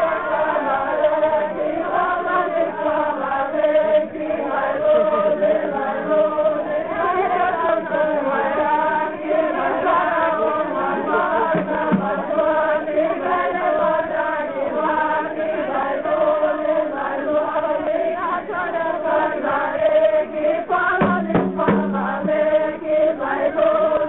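Several voices singing together in a repetitive, chant-like song.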